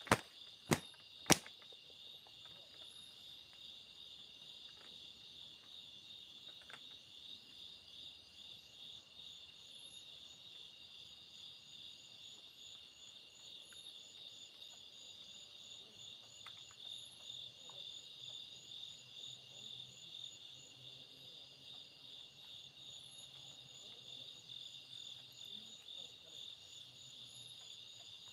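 Night insects chirring steadily in a fast, even pulse. Three sharp clicks come in the first second and a half.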